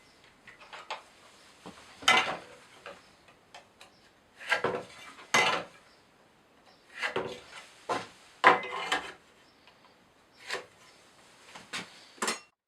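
Irregular clattering and knocking of hard objects being handled and set down, in scattered bursts, a few strikes leaving a brief ringing tone.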